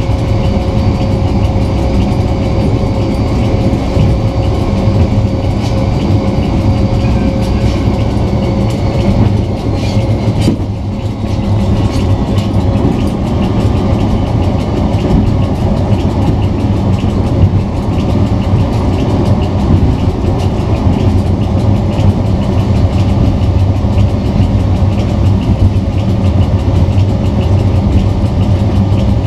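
Class 754 diesel locomotive heard from inside its cab while under way: the V12 diesel engine runs steadily under the clatter and clicks of the wheels on the track. The sound dips briefly about ten seconds in.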